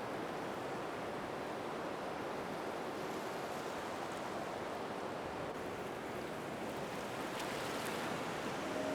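Steady rushing ocean-water ambience: an even wash of noise with no distinct events.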